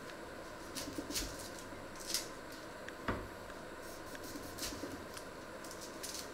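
Dry, papery onion skins crackling and tearing as they are peeled off an onion with a small paring knife, in short scattered rustles. A single sharper knock about three seconds in.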